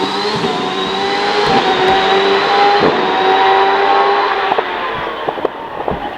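Hillclimb race car engine at full throttle, revving high with two brief breaks for gear changes, then fading away after about four and a half seconds with a few sharp pops and crackles.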